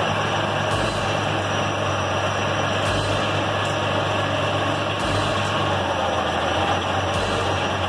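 Yale forklift engine running steadily, with a low pulse repeating about every two seconds.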